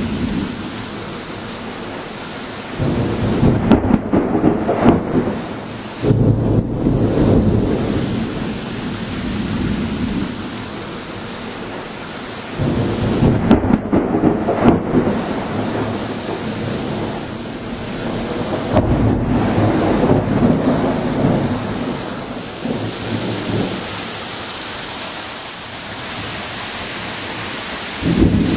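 Steady rain hissing through a thunderstorm, with several rolls of thunder rumbling in one after another, each lasting a few seconds.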